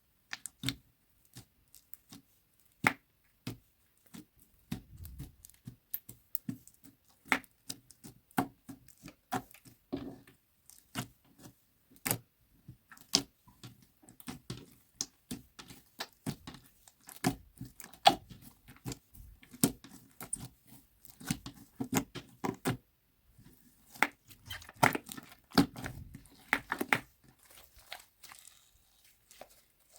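Slime being kneaded and stretched by hand, giving a rapid, irregular run of sticky pops and crackles.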